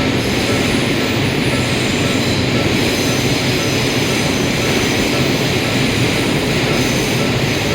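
A train passing through a railway level crossing at close range, a steady loud rumble and rush of noise. A faint short tone repeats evenly, typical of the crossing's warning bell.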